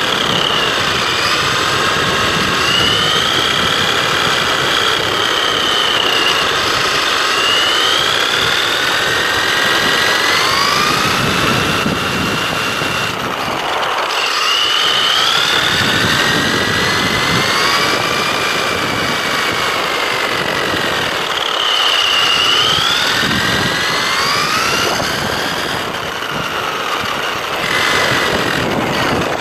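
Brushless electric motor and gear drivetrain of an Absima AB1BL RC buggy whining, the pitch rising and falling with the throttle, over a constant tyre rumble on rough tarmac, heard from on board the chassis. The whine drops away briefly a few times.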